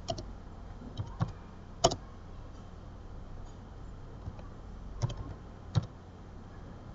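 Computer keyboard being typed on: a few scattered, separate keystrokes with pauses between them, over a low steady hum.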